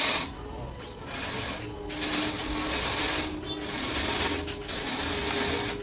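Power saw cutting through wood: a rasping hiss that breaks off briefly every second or so, over a faint steady machine hum.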